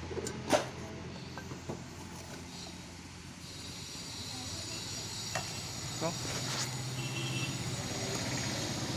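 Handling noise: one sharp click about half a second in and a few lighter knocks later, over a steady low hum.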